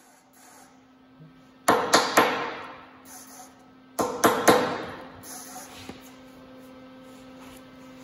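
MIG welder arc striking in two short sputtering bursts, about two seconds in and again at four seconds, each starting with sharp crackles and dying away, over a steady hum. The welding wire is sticking to the work.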